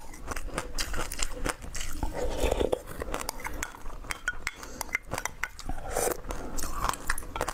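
A spoon scraping and clicking against a glass cup while scooping passion fruit pulp, with mouth sounds of biting and crunching the seeds.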